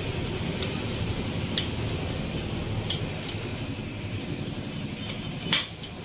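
A few light metallic clicks as the kick-starter shaft and its return spring are worked into place in a Yamaha RX135 crankcase with a wrench, with one sharper click near the end. A steady hum runs underneath.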